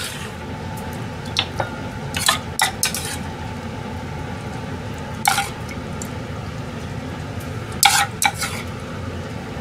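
Metal spoon scraping and clinking against a stainless steel pan while meat sauce is scooped out into a bowl. A few sharp clinks come about one and a half to three seconds in, one around five seconds, and a cluster near eight seconds, over a steady low hum.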